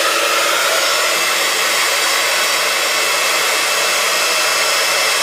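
Embossing heat gun blowing steadily, a constant loud rush of air with a faint hum, melting embossing powder on a painted MDF shape.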